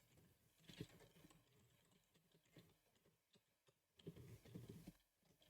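Faint computer keyboard typing: a couple of keystrokes about a second in, then a short burst of keystrokes near the end.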